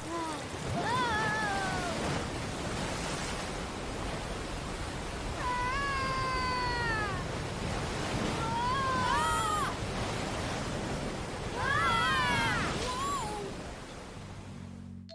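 About five meow-like animal cries, each rising briefly and then falling in pitch, over a steady rushing noise.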